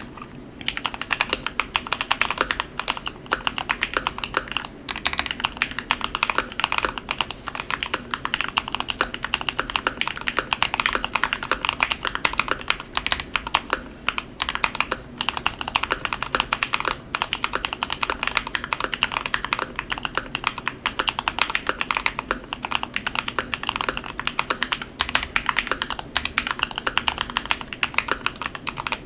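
Continuous fast typing on a Keychron Q1 aluminium mechanical keyboard with lubed Gateron Ink Black linear switches, a lubed Darling switch on the space bar and Holee-modded, lubed stabilizers: a dense run of key strokes with a few brief pauses.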